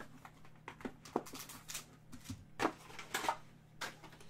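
Foil trading-card pack wrapper crinkling and crackling in short irregular bursts as it is handled and slid out of its box, with a few light taps.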